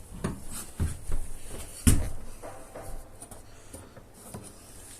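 Knocks, clicks and rattles of hands handling and adjusting a table saw's plastic and metal parts, with one sharp louder knock about two seconds in. The saw's motor is not running.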